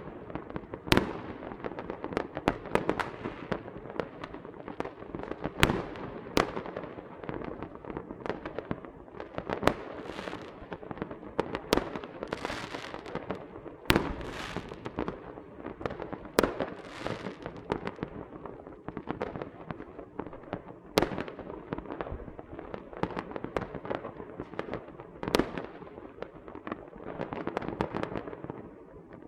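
Small fireworks and firecrackers going off without pause: a dense mass of pops and bangs, with many sharper, louder cracks scattered through it and a few rushing hisses in the middle stretch.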